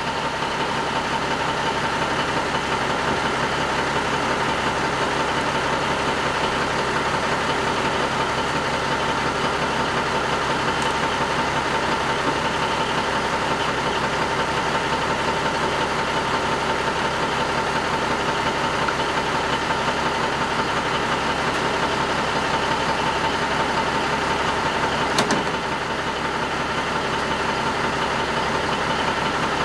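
Semi tractor's diesel engine idling steadily, with one sharp knock about 25 seconds in.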